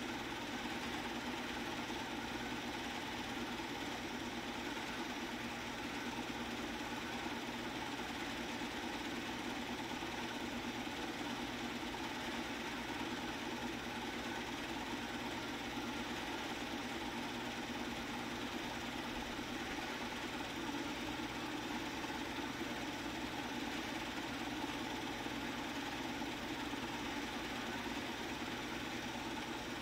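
Film projector running with a steady, even mechanical whir that does not change.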